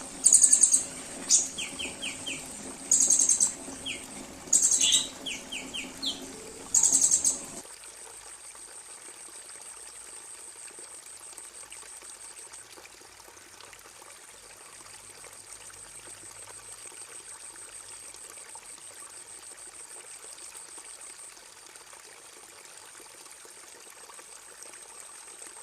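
Recorded songbird song for bird training: loud, high, rapid trilled bursts repeated about every second or two with short chirps between them. About seven and a half seconds in, the recording changes abruptly to a continuous faint, high-pitched buzzing trill.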